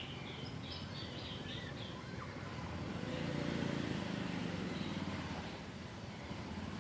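Small birds chirping in quick runs for the first two seconds, then a low hum that swells about three seconds in and fades away by five, over steady background noise.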